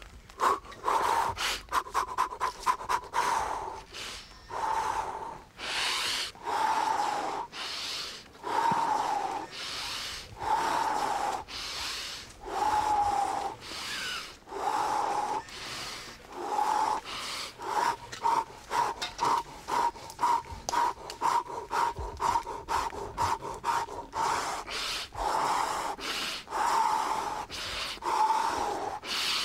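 A man doing a forceful breathing exercise. Runs of rapid, sharp breaths, several a second, alternate with slower, longer drawn-out breaths about a second apart.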